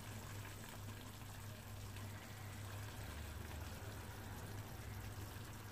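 Faint steady low hum with a light even hiss: room tone, with no distinct spoon or pan sounds standing out.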